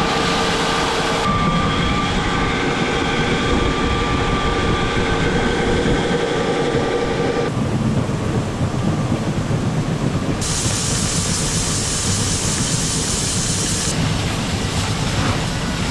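Grain-bin unloading auger running, with a steady whine over the rattle of shelled corn moving through it. The sound changes abruptly about seven and a half seconds in, and a hiss joins it for a few seconds after the ten-second mark.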